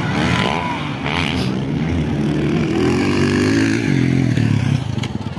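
Motocross dirt bike engines revving hard on the track, the pitch rising and falling as the riders work the throttle, then easing off near the end.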